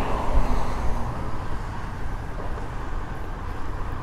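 Steady outdoor background noise: a continuous low rumble with an even haze above it, without distinct events.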